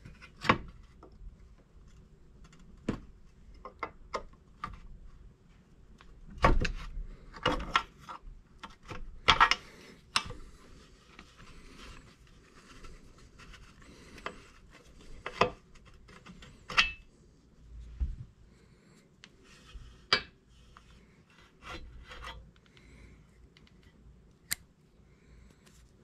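Irregular metal clinks, knocks and scraping as a brake pedal is worked off its pivot shaft in a bench vise with a punch, freeing the old pivot bushing.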